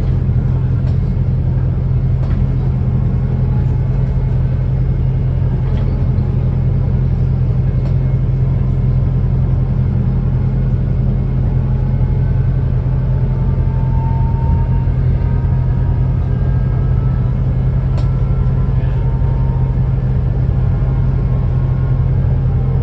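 Wrightbus New Routemaster series-hybrid bus running, its Cummins ISBe four-cylinder diesel giving a steady low drone that holds constant. About halfway through, a faint whine from the Siemens electric traction motor rises gently in pitch.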